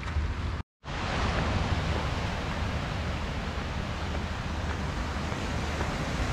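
Wind rumbling on the microphone over the steady wash of waves breaking on a rocky shore, with a moment of dead silence just under a second in.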